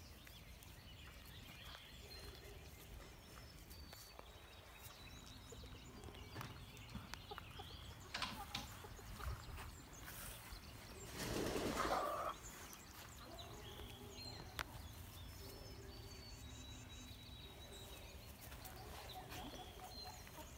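Faint farmyard ambience: small birds chirping briefly now and then in the background, with light rustling of puppies moving in straw and one louder rush of noise about eleven seconds in.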